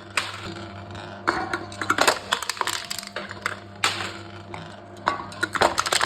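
Aluminium cans crumpling and crackling as a crushing machine flattens them, in three clusters of sharp crackles over a steady low hum.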